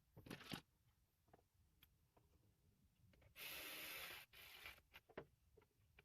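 Faint handling noises from a door trim panel being refitted: a few light clicks, then a rubbing, scraping noise about three and a half seconds in that lasts about a second, a shorter rub, and another click.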